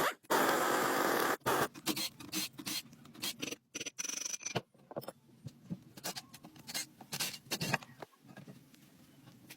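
A loud scrape lasting about a second, then a run of irregular shorter scrapes and knocks, as of work on a surface.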